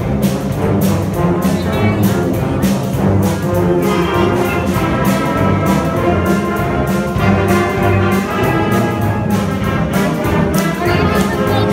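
High school concert band playing a Disney film medley live: brass and woodwinds in full sustained chords over a steady beat of percussion strokes.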